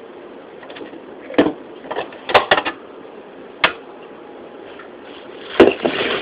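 Kitchen handling noise: about half a dozen sharp knocks and clicks of utensils and containers being handled while flour is measured out, the loudest near the end, over a steady background hiss.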